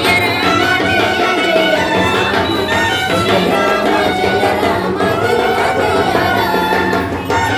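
A devotional song: singing over Indian hand-drum percussion, running steadily.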